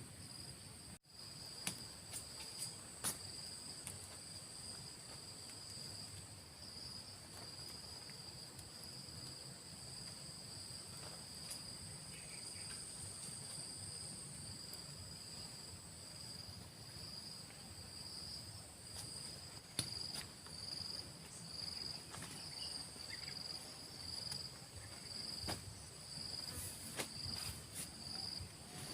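Steady high-pitched chorus of forest insects, two constant tones, the lower one turning to an even pulsing about two-thirds of the way through. A few sharp knocks sound over it.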